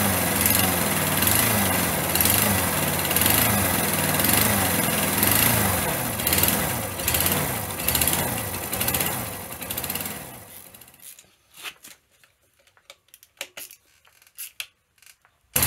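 Freshly rebuilt Yamaha SR125 single-cylinder four-stroke engine running, its revs rising and falling as the throttle is deliberately varied to run in the new engine. About ten and a half seconds in it winds down and stops, leaving a few faint clicks and knocks.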